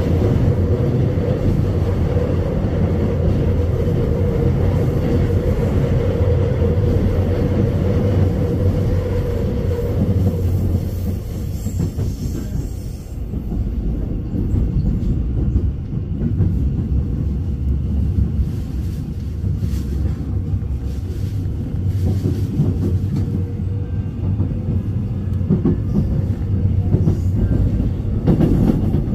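Seoul Subway Line 2 train running, heard from inside the car: a steady rumble of wheels on rail. A humming tone sits over it for the first third and fades out about ten seconds in.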